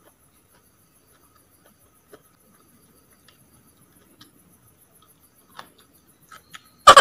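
Faint eating sounds: soft clicks of a fork and quiet chewing of fried wild ferns. Near the end, loud music starts abruptly with a run of rapid repeated piano-like notes.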